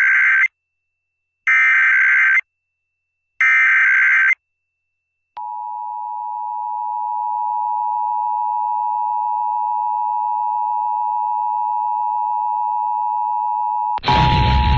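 Emergency Alert System test on FM radio: three screechy data bursts of the SAME header, each about a second long and a second apart. After a second of silence, the two-tone attention signal (853 and 960 Hz) sounds steadily for about eight and a half seconds. Near the end a loud wash of static comes in over the tone.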